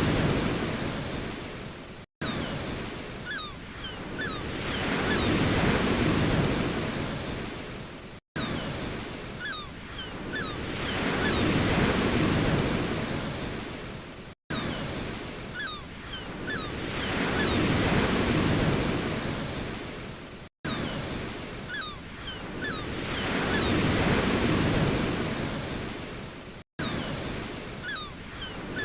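Ocean surf washing in and drawing back, swelling and fading about every six seconds. The same short recording repeats, cutting briefly to silence at each repeat, and carries a few faint high chirps.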